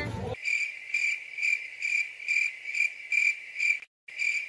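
Cricket-chirping sound effect laid over a silenced soundtrack: a high, even chirp repeating about twice a second, the comic 'crickets' gag for an awkward silence. It cuts in abruptly and drops out for an instant near the end.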